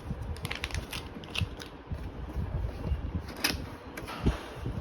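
Cardboard box and packaging of a mechanical keyboard being handled and opened: scattered small clicks, taps and rustles, with one sharper knock about three and a half seconds in.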